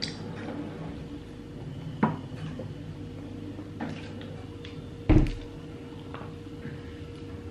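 Large plastic water bottle set down on a tabletop with a heavy thump about five seconds in, after a couple of lighter knocks as it is handled; a faint steady hum underneath.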